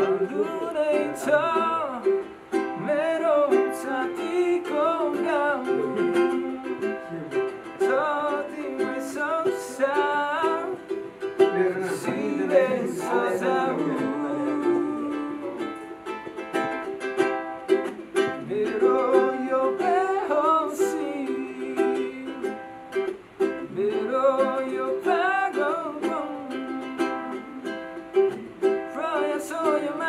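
A man singing a slow, wavering melody with plucked-string accompaniment.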